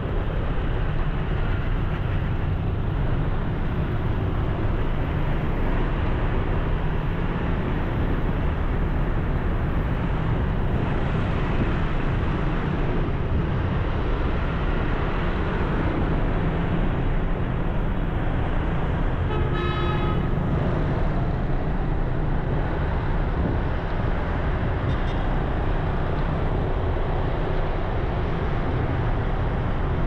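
Steady road traffic noise, with a vehicle horn sounding briefly about twenty seconds in.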